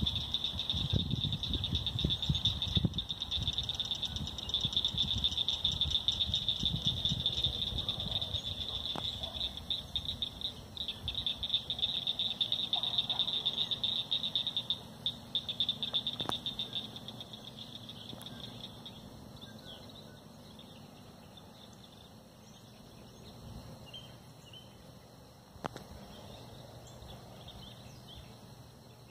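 A steady, high, fast-pulsing trill from a chorus of calling animals, fading out after about eighteen seconds. A low rumble sits under it for the first few seconds.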